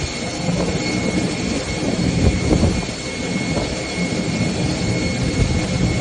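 Jet engines of a flydubai Boeing 737 running as it taxis through standing floodwater: a steady rushing noise with a thin, steady high whine.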